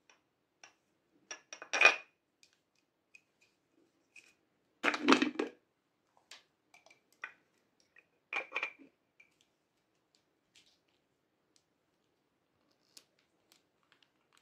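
A glass jar with a teal plastic sleeve and lid being handled and opened: a few sharp knocks and clinks, loudest about two and five seconds in and again near eight seconds, with faint clicks between.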